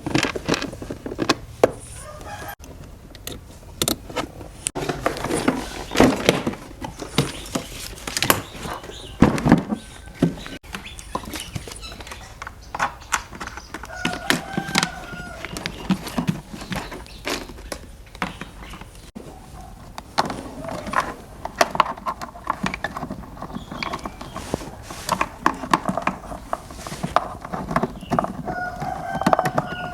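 Irregular clicks and knocks of hand work on parts, with chickens calling in the background, twice with a short call near the middle and near the end.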